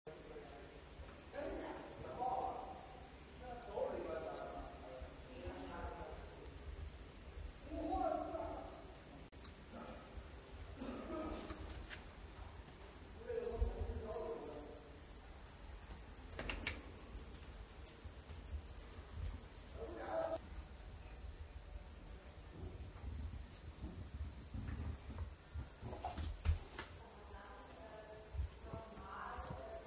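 A continuous high-pitched trill, rapidly pulsing and steady in pitch, with faint muffled voice-like sounds coming and going underneath.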